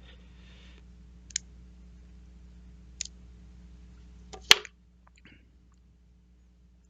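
Small metal parts of a bicycle shifter clicking as they are handled during disassembly: three sharp, separate clicks, the last and loudest about four and a half seconds in, over a faint steady hum.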